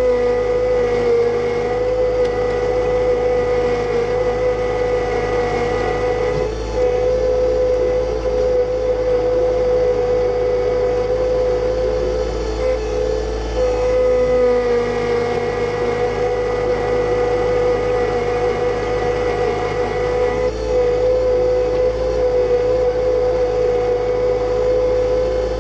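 John Deere 2025r compact tractor's three-cylinder diesel engine running steadily under the load of a rock rake dragging through dirt, with a steady high whine over the engine note.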